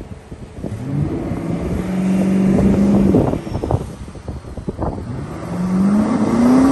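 Twin-turbo Ford Mustang Coyote 5.0 V8 brake-torqued for a launch, revved twice over a rough idle. Each time the revs climb, hold briefly, then fall away as the engine computer cuts the throttle at around 3,000–4,000 rpm. This is the fault the owner is having the tuner check in the data log.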